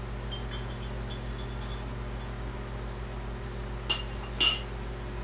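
A fork clinking against a dish while mixing: a quick run of light, ringing clinks in the first two seconds, then two sharper clinks about four seconds in, over a steady low hum.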